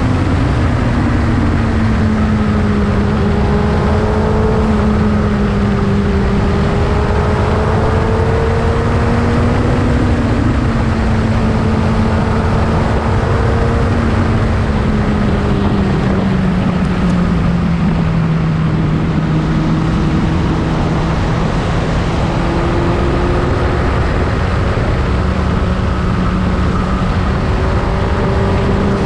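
Motorcycle engine running steadily at riding speed, its note easing down about halfway through and then climbing back, over heavy wind rush.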